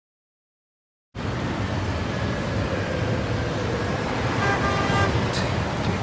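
A steady rumbling noise, like road traffic, starts abruptly about a second in. Faint musical notes join it near the end.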